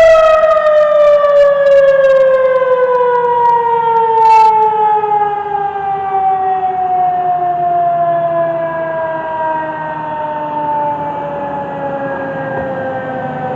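Federal Signal 2001-SRN outdoor warning siren winding down after being shut off, its loud, high-pitched single tone sliding slowly and steadily lower and fading.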